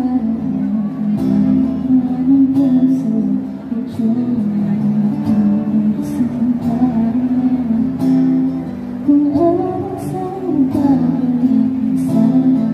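A woman singing a song live while accompanying herself on guitar.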